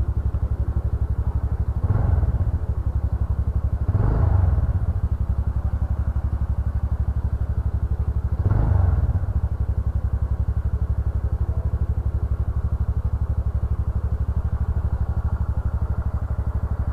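TVS Ntorq 125 scooter's single-cylinder engine idling, with three short throttle revs about two, four and nine seconds in, during a pollution emissions test with the tester's probe in the silencer.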